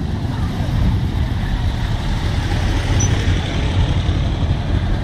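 Motorcycle engines running at low speed close by, a steady low rumble.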